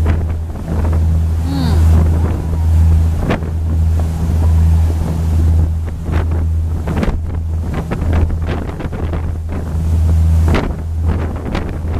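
A river sightseeing boat's engine running with a steady low hum while under way. Wind buffets the microphone in gusts, over the rush of the boat's wake.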